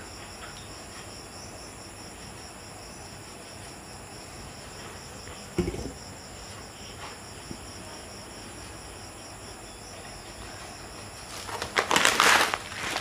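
Loud rustling of plastic grocery packaging near the end as a packet of rice is picked out. Before it there is a steady faint high-pitched ringing and hiss in the background, with one soft knock about halfway through.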